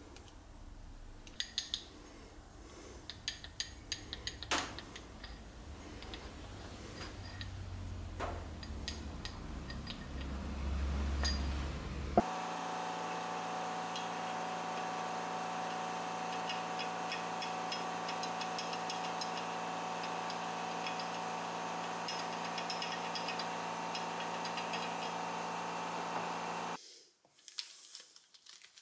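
Light metallic clinks and taps, as of small metal parts being handled. About twelve seconds in, after a cut, a steady machine hum with a constant tone and faint rapid ticking takes over, then stops abruptly near the end.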